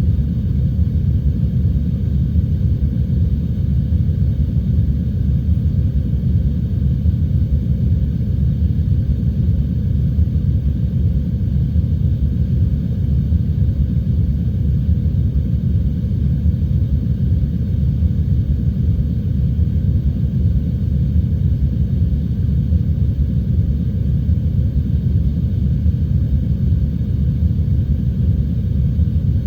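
Heavy rain and wind as a steady, deep rumble, with little high hiss.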